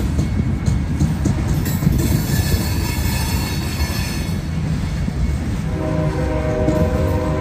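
Loaded covered hopper cars of a grain train roll slowly past, with a low steady rumble and clicking of wheels over the rail joints. About six seconds in, a train horn starts sounding and holds over the rumble.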